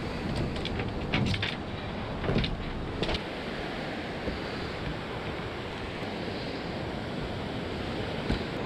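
Steady wash of surf breaking and running up the beach, with wind on the microphone. A few short knocks and rattles of fishing gear being handled come between about one and three seconds in.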